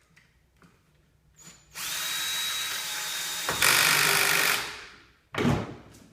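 Electric screw gun driving a wheel's axle screw home for about three seconds, running steadily and getting louder in its last second, then a single knock about five seconds in.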